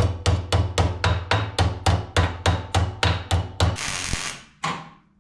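Hammer beating a piece of sheet steel to bend it, in rapid, even blows of about three a second. The blows stop about four seconds in, followed by a brief scraping hiss and one last knock.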